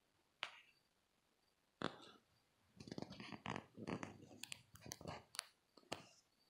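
Close handling noise: two sharp clicks, then a few seconds of rapid scratchy clicking and rustling, ending with one last click.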